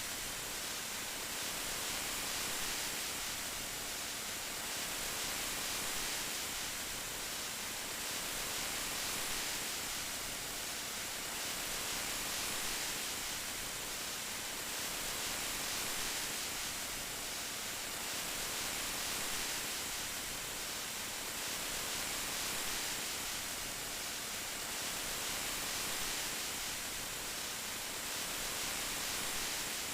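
Steady rain sound, an even hiss that swells gently about every three seconds.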